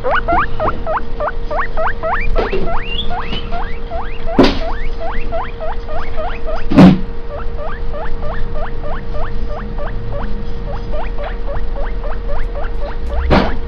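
Guinea pig wheeking: a rapid run of short rising whistles, about three a second. This is the call a guinea pig makes when hungry and asking for food. A steady hum runs underneath, and two knocks come about four and a half and nearly seven seconds in.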